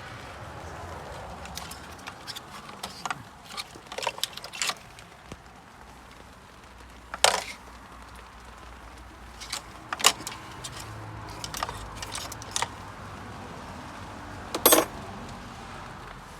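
Hand tools and metal parts clinking and knocking during engine repair work: scattered sharp clicks, with three louder strikes about a third, two thirds and nine tenths of the way through.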